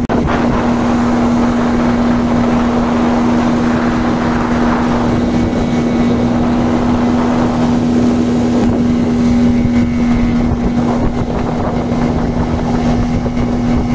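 Outboard motor on a small aluminium boat running at a steady cruising speed, one constant hum, over the rush of water along the hull and wind on the microphone.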